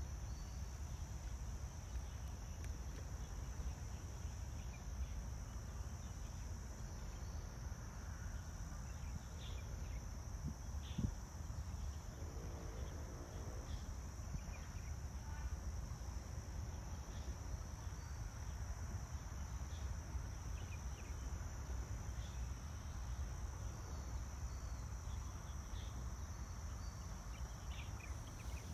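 Outdoor ambience: a steady high-pitched buzz over a low rumble, with a few faint clicks.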